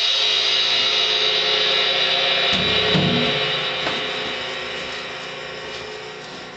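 Drum-kit cymbals ringing out after being struck, the wash of sound slowly dying away, with a soft low thud about two and a half seconds in.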